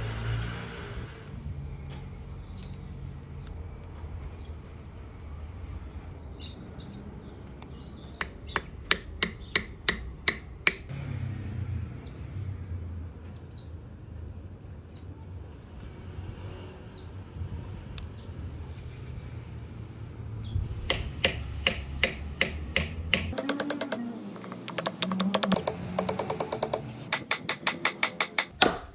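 Hammer tapping wooden wedges into the top of a rosewood axe handle to lock it in a double-bit axe head's eye: a short run of taps, about four a second, a third of the way in, then steady taps from about two-thirds through that speed up toward the end. Small birds chirp faintly between the runs.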